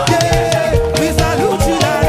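Live upbeat African gospel praise music: a fast drum rhythm with held melody notes and some singing.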